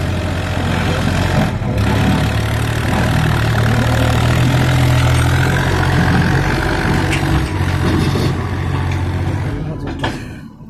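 Preet 955 tractor's diesel engine labouring as it pulls a trailer up over a sand mound, heavy enough that the front wheels lift. The engine note steps up about two seconds in and holds steady, then briefly drops away near the end.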